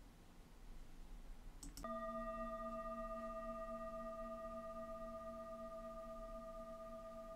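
A faint click, then a single bell-like chime struck about two seconds in. It rings on with a slow wobble and fades very gradually.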